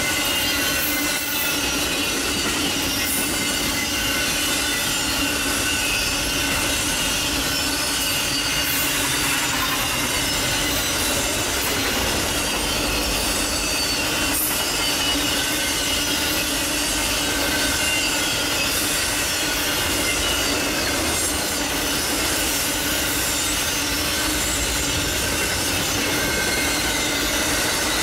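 Railroad cars rolling past with their wheels squealing: several steady, drawn-out tones over a continuous rolling rumble.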